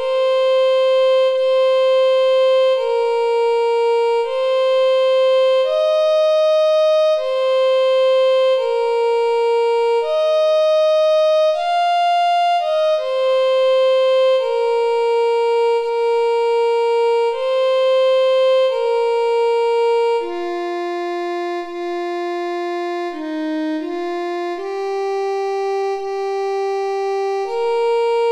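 Two o'clock time-signal melody: a slow tune of held, reedy organ-like notes, each about a second to a second and a half long. About two-thirds of the way through it moves into a lower, somewhat softer phrase.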